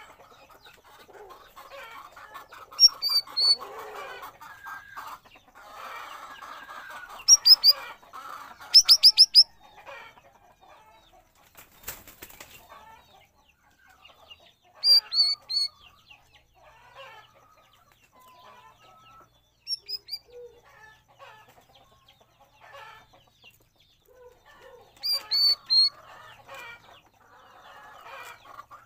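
Cucak rawis bulbul calling in about six loud, short bursts of two or three high whistled notes, spaced a few seconds apart, over a lower chattering background. There is one sharp click about twelve seconds in.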